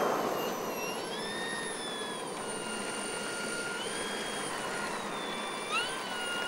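RC model plane's motor and propeller in flight, a whine whose pitch steps up and down with the throttle, with a quick upward swoop near the end. A rushing sound from the plane passing fades away in the first second.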